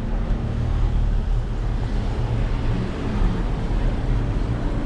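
Wind rumbling over the microphone of a GoPro riding on a moving bicycle, a steady low buffeting with a hiss of street noise above it.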